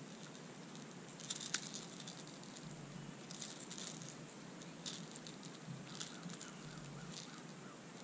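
Light clicks and rattles from handling a small spotted bass and working a jerkbait's hooks free of its mouth, with a sharper click about a second and a half in.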